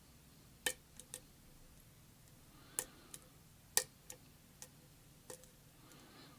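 Lock pick and tension wrench working the pins inside a five-pin Kwikset lock cylinder: scattered sharp metallic clicks, about nine, at irregular intervals as pins are lifted and set.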